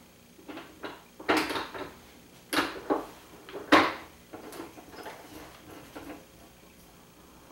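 Handling knocks and clatter as a Marlin Guide Gun lever-action rifle is set down into a plastic gun vise and clamped: four sharp knocks between about one and four seconds in, the last the loudest, with lighter clicks around them.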